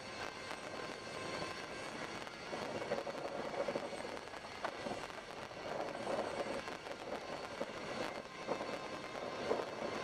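Steady road and engine noise heard inside a moving car's cabin.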